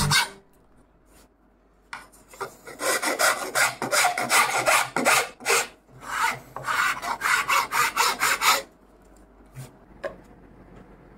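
Flat hand file rasping the inside edge of a cutout in a wooden pegbox, shaping it by hand. About two seconds in, a run of short, quick back-and-forth strokes begins and lasts some six seconds before stopping.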